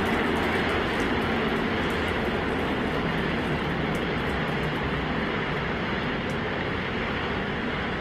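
Super Heavy booster's 33 Raptor rocket engines firing at full thrust during ascent: a steady, deep rumbling roar with a faint crackle on top, slowly growing fainter.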